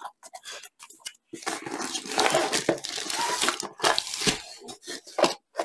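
A long cardboard kit box being opened: the printed sleeve is slid off and a rolled canvas in clear plastic wrap is pulled out, with cardboard scraping and plastic crinkling and a few light knocks. The rustling starts about a second in and stops shortly before the end.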